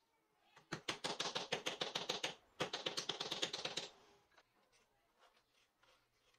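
Wooden dowel tapping rapidly on a steel tee nut, driving it down into a hole in a hardwood block: two quick runs of sharp clicks, about ten a second, with a short pause between them.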